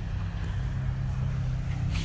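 Steady low diesel engine rumble of a passing train.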